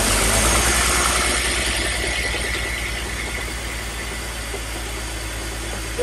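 BMW Z4 3.0's straight-six engine idling just after a start, its level slowly falling as the revs settle, running with a misfire.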